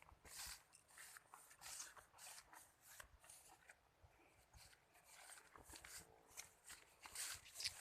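Faint footsteps, soft irregular scuffs about twice a second, as of someone walking over muddy ground.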